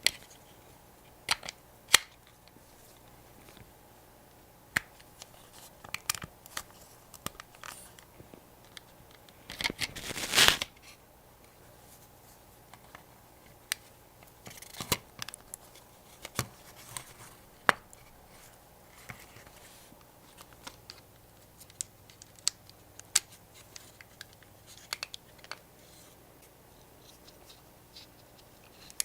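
Irregular small clicks, taps and light scraping from hand work on small metal parts, with one louder rough scraping noise lasting about a second about ten seconds in.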